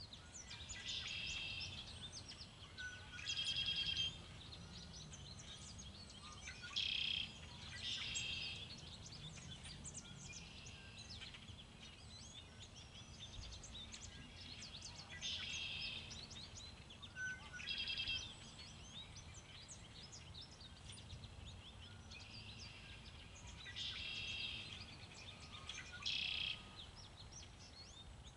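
Songbirds calling: short bursts of high chattering notes, about eight of them spaced a few seconds apart, over a low steady background rumble.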